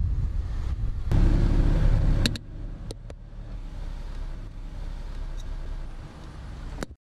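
Car running, heard from inside the cabin: a loud low rumble for about two seconds, then a quieter steady hum with a few sharp clicks, cutting off abruptly near the end.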